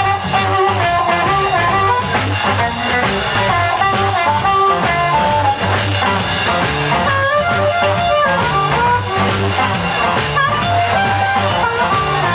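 Live 1950s-style electric blues band: blues harmonica playing a wailing, sliding lead over electric guitars and drums with a steady beat.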